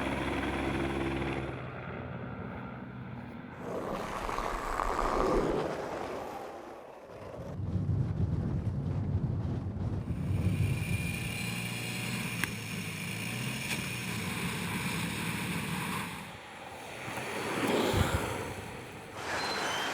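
Vehicle engines running, with a whooshing pass-by about four seconds in and another near the end; the sound changes abruptly several times.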